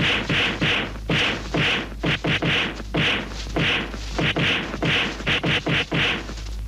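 A rapid series of sharp, dry percussive hits in an uneven rhythm, about three a second with quick clusters of three or four, over a steady low hum.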